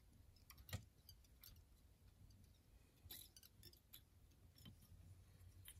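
Near silence, broken by a few faint small clicks and taps from hands working at a fly-tying vise: one about a second in and a small cluster about halfway through.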